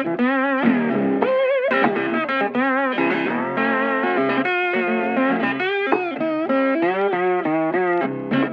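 Background music: an electric guitar melody with vibrato on held notes over a steady accompaniment.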